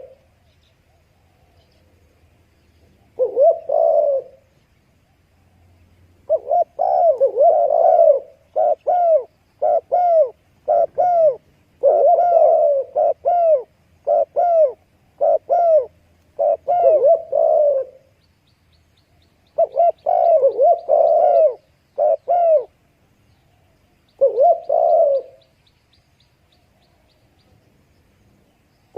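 Spotted dove cooing: low coo phrases repeated in runs, with pauses of one to two seconds between the runs.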